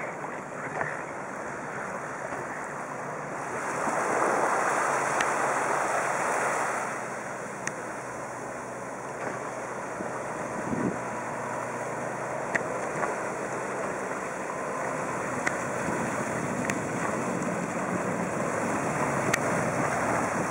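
Jet ski-powered inflatable RIB running on the water: a steady rush of water and wind noise, louder about four to seven seconds in, with a few faint sharp ticks.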